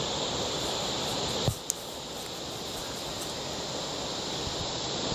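Insects shrilling in a steady high buzz, cut off by a click about a second and a half in. A steady rushing noise of the waterfall carries on after it.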